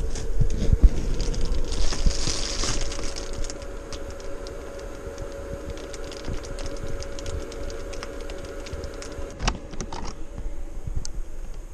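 Rain pattering on the RV's roof and windows as many small irregular ticks, over a steady faint hum. A rustle runs through the first few seconds, and a single sharp click comes about nine and a half seconds in.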